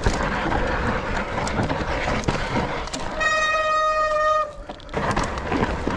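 Mountain bike rolling over a dirt trail, with tyre and wind noise on the camera, and about three seconds in a single long steady beep lasting just over a second.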